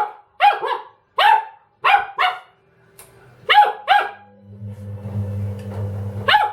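Doberman puppy barking, a string of short sharp barks mostly in quick pairs, at a washing machine. About four and a half seconds in, a low steady hum from the running washing machine starts under the barks.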